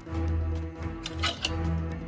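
Film-score background music with held notes over a low, pulsing bass, and a short noisy sound effect a little over a second in.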